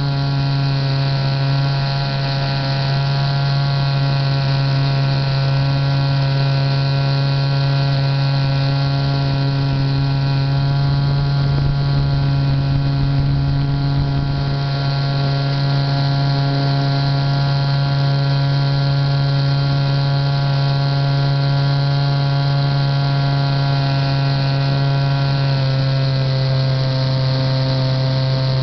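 Titan J3 model plane's motor and propeller running steadily in flight, a loud even drone heard from a camera mounted on the plane. The pitch drops a little near the end.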